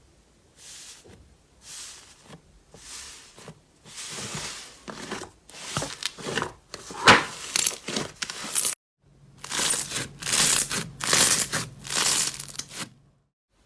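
Slime being squeezed and pressed by hand, making a run of crackly, crinkling squishes. They start soft and come louder and faster after about four seconds. After a short break just before nine seconds in, more squishes follow over a faint low hum.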